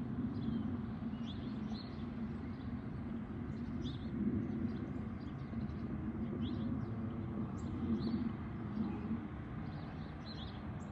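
Small birds chirping in short, scattered calls over a steady low rumble of outdoor background noise.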